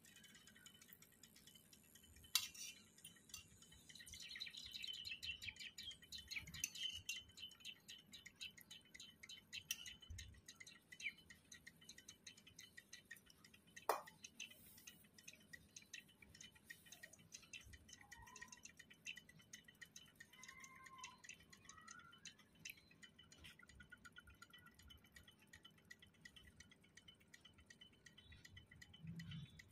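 Block of Ural clay soaking in a bowl of water, sizzling faintly with fine crackles and ticks. The crackling is thickest in the first several seconds and then thins out, with one sharper pop about halfway.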